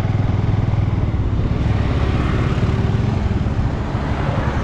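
Motorcycle engine running as the bike is ridden, a steady pulsing drone that eases off a little about three seconds in.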